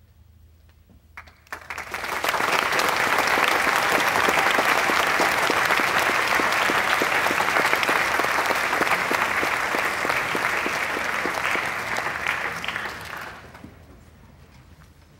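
Audience applauding: a few claps about a second in, swelling quickly into steady applause that dies away near the end.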